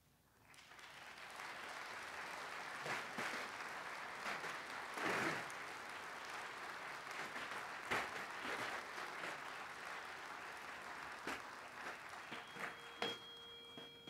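Audience applauding, swelling in about half a second in and tapering off near the end.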